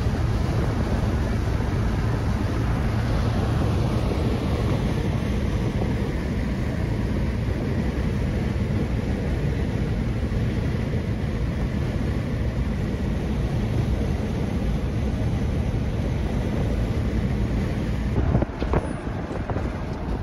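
Steady car driving noise at highway speed: engine, tyre and wind noise, with wind rushing over the microphone.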